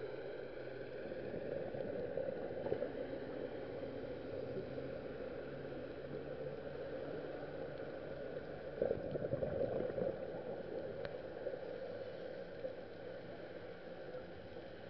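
Underwater ambient noise picked up by a camera in its underwater housing: a steady hum with faint steady tones above it, and a louder, rougher spell about nine seconds in.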